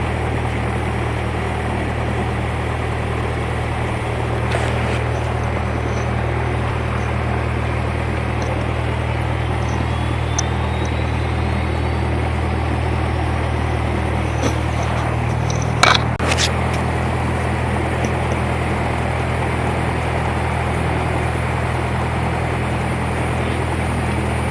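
Cessna 172's piston engine running steadily at idle on the ground, a low even hum heard inside the cabin. A couple of sharp clicks about two-thirds of the way through.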